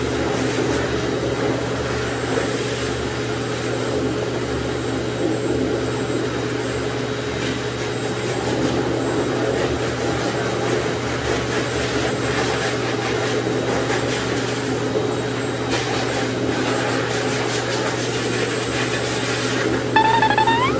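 High-velocity pet blow dryers running steadily, a motor hum under a rush of air, blowing through a husky puppy's coat after its bath. Near the end the puppy gives a short rising whine.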